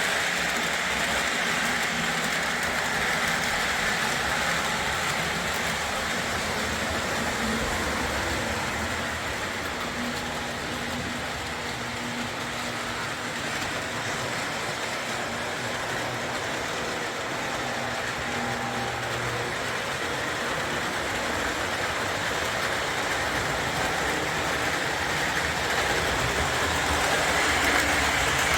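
O gauge Lionel Alco FA-1 diesel locomotives running a boxcar train around three-rail track: a steady motor hum and wheels rolling over the rails, fading a little through the middle and growing louder again near the end as the train comes back round.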